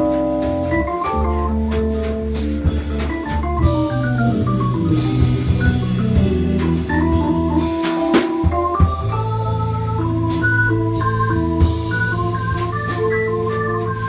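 Live jazz combo playing: a keyboard on an organ sound holds chords and a walking low bass line, a vibraphone plays mallet notes over it, and a drum kit keeps time with cymbal and snare strokes.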